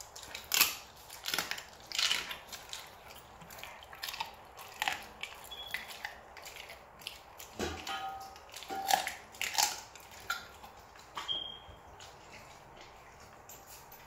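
A Rottweiler chewing and crunching a piece of raw chicken, with irregular sharp crunches that stop about eleven seconds in.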